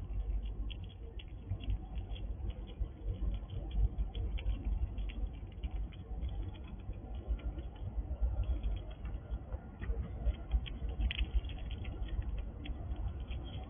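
Squirrel chewing dried apple right at the microphone: rapid, irregular crisp crunching and clicking, over low bumps from the animal moving close to the camera.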